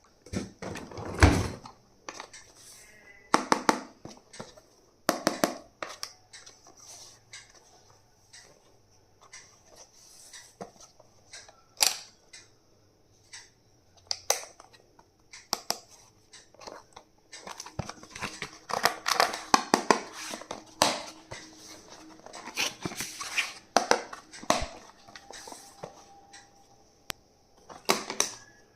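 Hands unpacking and handling stationery: plastic packaging crinkling and tearing, with irregular clicks and taps of small plastic items being handled.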